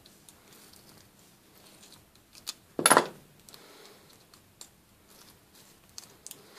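A knife blade prying open a small plastic magnetic antenna base: faint scrapes and small clicks, with one loud, sharp clack about three seconds in.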